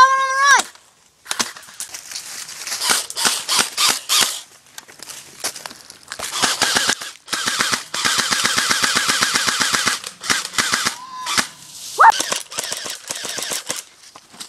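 Airsoft guns firing in rapid bursts of clicks, the longest a steady full-auto burst of about two seconds in the middle. A brief shout at the very start.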